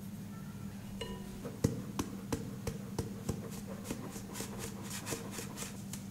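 A hand tapping the rim of a stainless-steel mesh sieve of flour and spices held over a glass bowl, sifting it: sharp regular taps about three a second, becoming quicker and lighter from about four seconds in. A steady low hum runs underneath.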